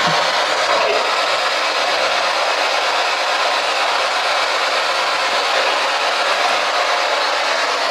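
Loud, steady hiss that stays even throughout, with almost no low end.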